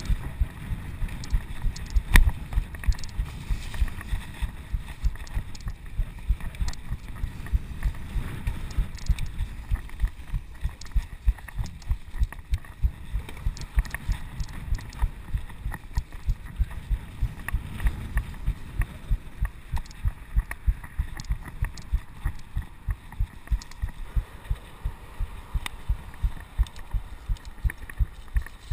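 Mountain bike ridden along a dirt singletrack, heard through a chest-mounted GoPro in its case: a muffled rumble of tyres and wind with low thumps about twice a second in time with the pedalling, and a few sharp clicks and knocks from the bike over bumps.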